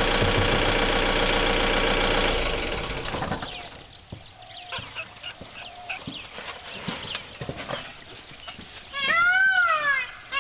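Vehicle engine idling, dying away about three seconds in; then quiet with scattered light clicks. Near the end a loud call rises and falls in pitch twice.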